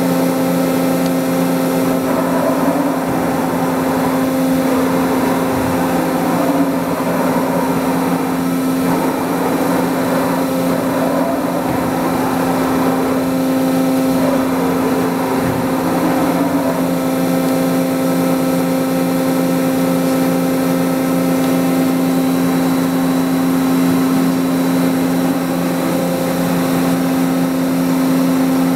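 Mazak Integrex 200 multi-axis CNC turning and milling center running: a steady machine hum, with whines sliding up and down in pitch over the first half or so, then settling to a steady hum.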